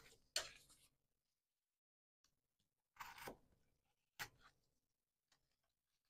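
Faint handling of cardstock in near silence: a short rub about half a second in, a brief rustle about three seconds in, and a light tick just after four seconds.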